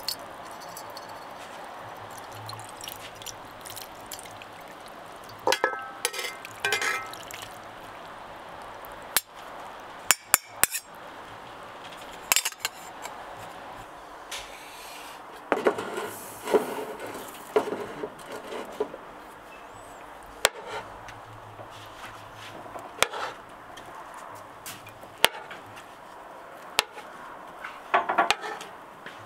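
Kitchen utensils at work: scattered sharp clinks and knocks of metal on pots and dishes, with a few short spells of clatter, over a steady low hum.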